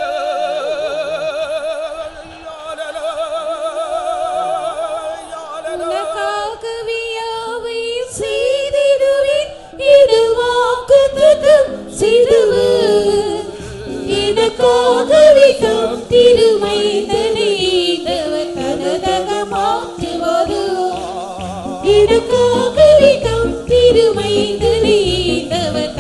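Christian worship song. A sung note wavers with heavy vibrato for the first few seconds, then from about eight seconds in a melody is sung over instrumental backing with a steady beat.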